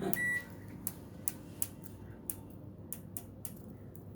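Program selector knob of a Haier front-load washing machine being turned, clicking through its detents about three times a second, with one short high beep near the start.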